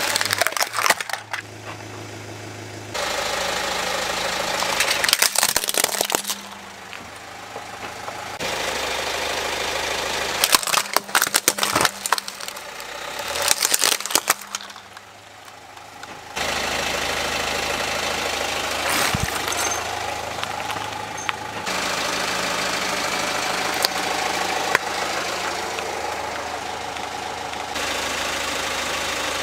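A car engine idling while the car's tyre rolls over plastic toys, crushing them with clusters of sharp cracks and crunches about a second in, around five seconds in, and again from about ten to fourteen seconds in. The steady engine hum changes abruptly between short cuts.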